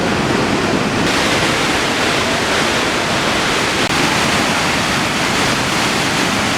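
Muradiye Waterfall in spring spate: a loud, steady rush of falling water, which turns brighter and hissier about a second in.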